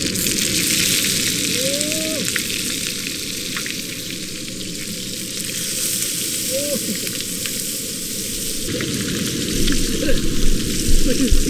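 Striped bass fillets sizzling as they fry in butter in a nonstick pan on a camp stove, a steady hiss. A few low thumps near the end.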